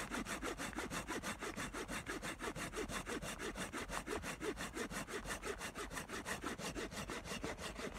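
Folding hand saw cutting through a wet dead maple log with fast, even back-and-forth strokes, the teeth rasping through the wood.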